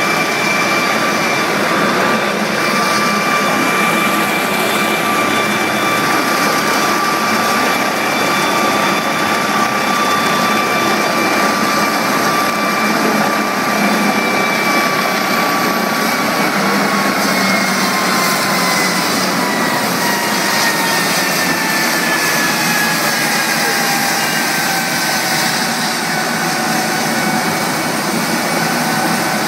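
London Air Ambulance's MD 902 Explorer helicopter running on the ground with its rotor turning: a loud, steady turbine whine over a constant rush of engine and rotor noise. About halfway through, the whine begins to fall steadily in pitch as the turbines spool down.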